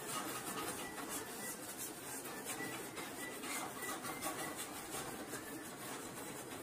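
Hand rubbing or scraping at a wall-mounted water pipe fitting: quick repeated strokes, a few a second, over a steady scratchy hiss.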